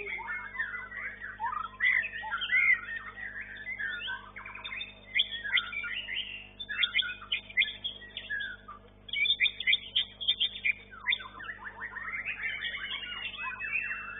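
White-rumped shama (murai batu) singing a fast, varied run of whistled and chattering phrases. There is a short pause about two-thirds of the way in.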